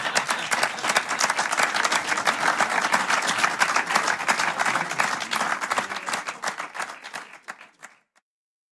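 Live audience applauding, many hands clapping together, fading away over the last couple of seconds and stopping about eight seconds in.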